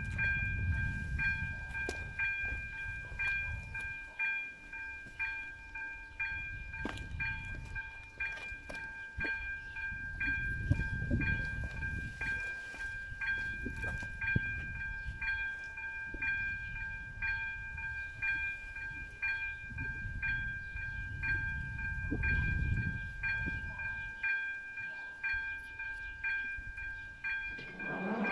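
Railway level-crossing warning bell ringing: an electronic chime-like tone repeating about once a second while the red lights flash. It cuts off suddenly near the end as the barriers start to come down. A low rumble comes and goes beneath it.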